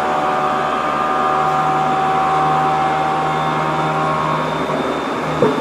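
Tokyo Metro 07 series subway train running, heard from inside the car: steady rolling noise under a multi-tone whine from its VVVF inverter and traction motors. The whine fades out about four seconds in, and there is a short knock near the end.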